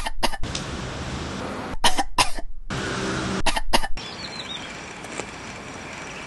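A dog retching and heaving in three loud, rasping, cough-like bouts, roughly one and a half to two seconds apart. After about four seconds only a quieter outdoor background remains, with a few faint high chirps.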